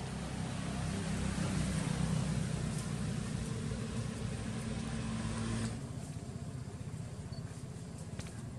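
Steady engine-like hum over a broad rushing noise, cutting off suddenly a little over five seconds in; a quieter background with a few faint clicks follows.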